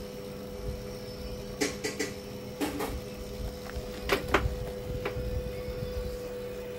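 Multimeter probes and leads being put down on a workbench: a scattering of light clicks and knocks in small clusters, the loudest about four seconds in, over a steady electrical hum.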